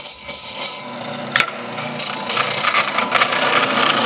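Electric power tool running with a steady high whine, then cutting into the rough end of a steel tube about two seconds in, a louder grinding rasp, to square the tube end.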